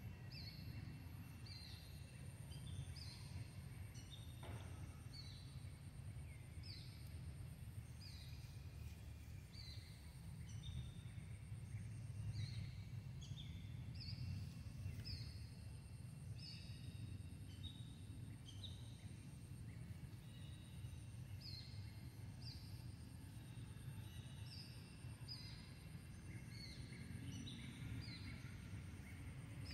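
Outdoor ambience: small birds chirping in short, falling notes, about one or two a second, over a low steady rumble and a faint, steady high whine.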